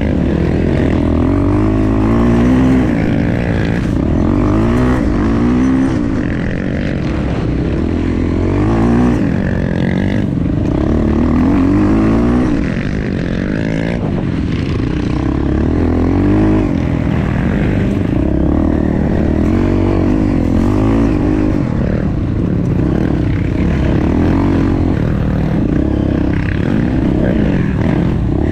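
Honda Tornado trail bike's single-cylinder four-stroke engine ridden hard, its revs rising and falling again and again every second or two as the throttle is opened and closed.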